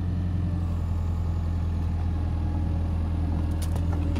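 Diesel engine of a Hitachi tracked excavator running steadily with a low, even hum. A few sharp clicks come in near the end.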